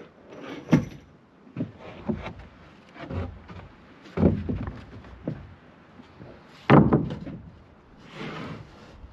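A series of irregular knocks and thuds, three of them sharp and loud (about a second in, around four seconds in and near seven seconds in), with softer knocks between and a short rustle near the end.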